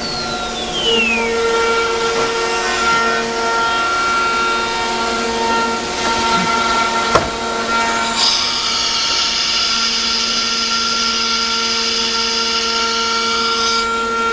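ATC CNC router's HSD spindle running with a steady whine of several held tones, with a falling whine in the first second. From about eight seconds in, the router bit cuts into wood, adding a loud hissing rasp that lasts about six seconds and stops just before the end.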